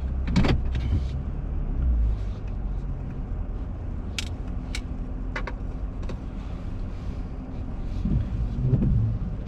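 2022 Toyota Tundra's twin-turbo V6 running, heard from inside the cab as a steady low hum, with a few sharp clicks over it.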